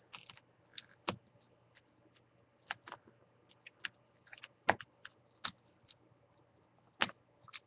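Faint, irregular small clicks and ticks as fingertips lift adhesive tape from around the laptop screen's video cable connector and handle the connector. There are about a dozen clicks, unevenly spaced, with a few sharper ones about a second in, near the middle and near the end.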